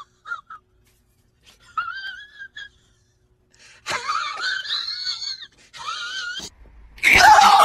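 Domestic cat yowling in a series of drawn-out, wavering calls with short gaps between them, ending in a louder, harsher cry near the end.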